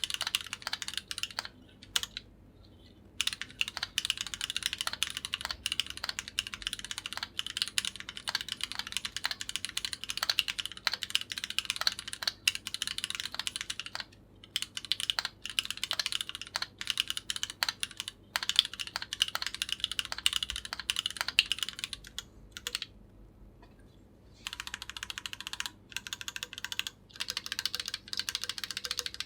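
Typing on a Keychron Q8 mechanical keyboard with Gateron Oil King linear switches: fast, continuous runs of keystrokes broken by short pauses, with a longer pause about three-quarters of the way through.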